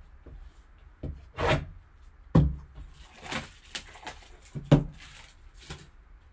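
Cardboard trading-card box handled on a table: a string of short rustles and scrapes as its clear plastic wrap is pulled off, with two dull thumps as the box is set down, about two and a half and nearly five seconds in.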